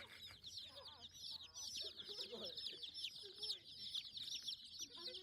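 Chickens: a dense chorus of short, high peeps, each falling in pitch, with lower clucks underneath.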